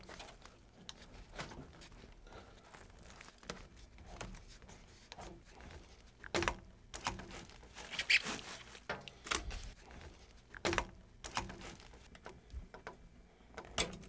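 Copper refrigerant line being cut with a tubing cutter: faint scraping with scattered sharp clicks and knocks.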